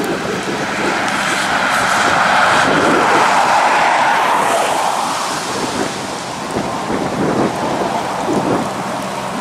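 A car passing close on a wet highway, its tyres hissing on the wet road as it swells to a peak about three seconds in and fades away. Rain and gusty wind buffeting the microphone carry on underneath.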